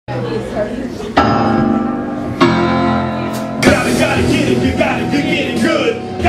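Live band music over crowd chatter: two held chords struck about a second in and again at about two and a half seconds, then the band plays on with voices over it.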